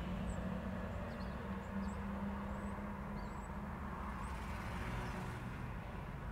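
Steady road-traffic rumble of cars and trucks at an intersection, with an engine's hum for the first few seconds and a vehicle passing a little after the middle. A few faint, short high chirps sound over it.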